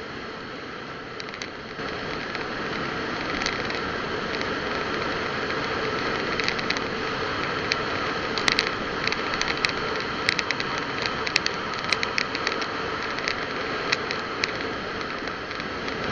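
Steady road and engine noise heard from a moving vehicle, with an irregular scatter of sharp clicks and rattles through the middle.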